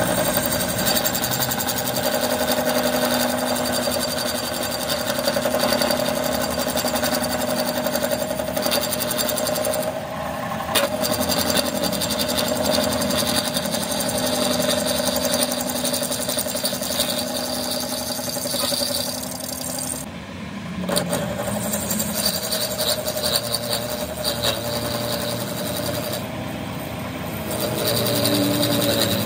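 Metal lathe running, its cutting tool turning down a steel axle shaft: a steady mechanical whine and hum, with brief dips about a third and two thirds of the way through.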